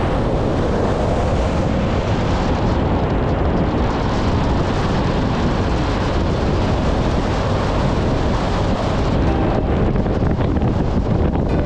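Motorcycle riding at highway speed: steady wind buffeting on the microphone, with the bike's running noise underneath.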